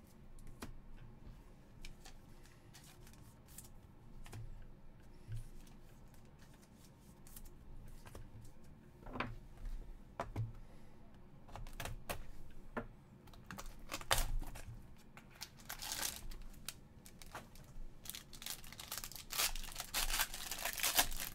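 Scattered clicks and taps of card boxes being handled, then, from about three quarters of the way in, a dense crinkling and tearing as the plastic wrap on a Black Diamond hockey card box is torn open.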